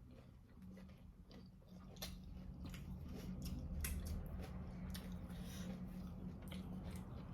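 Close-miked chewing of pan-fried pork, with scattered wet mouth clicks and smacks over a steady low hum.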